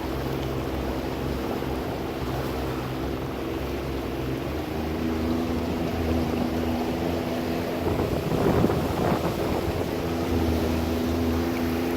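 An engine running steadily, its pitch shifting about five seconds in, with a brief surge of rushing noise around eight seconds in.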